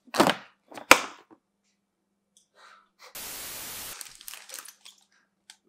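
A burst of TV-static hiss from an editing transition, lasting about a second, preceded by a sharp crack. Light rustling of plastic wrap and tissue paper follows the hiss.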